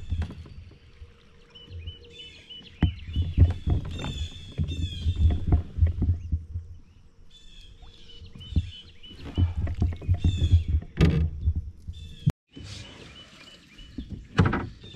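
Knocks and thumps on a kayak hull, with water splashing, as a bass is fought and landed at the side of the boat. Birds sing repeated chirping phrases throughout.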